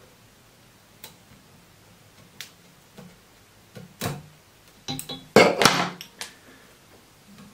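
Small fly-tying scissors snipping while trimming feathers and thread on a fly in the vise: a few scattered snips, then a louder close cluster of snips and handling about five to six seconds in.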